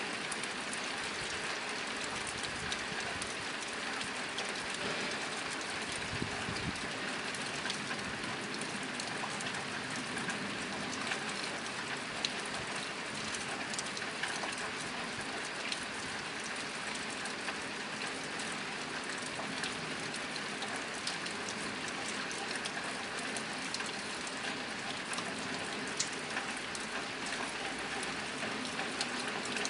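Steady rain drumming on a nearby tin roof: a dense, even patter with many individual drop ticks.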